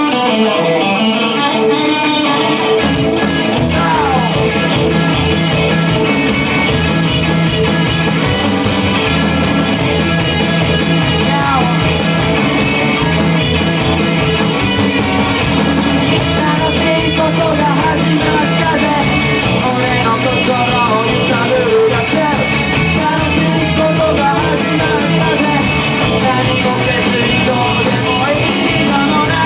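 Rock band song: an electric guitar plays alone, then about three seconds in the drums and bass come in together, and a singing voice follows over the full band.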